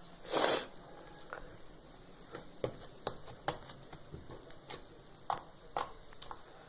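Hands squeezing and poking slime: a short, loud squelching burst about half a second in, then scattered small sharp clicks and pops as the slime is pressed.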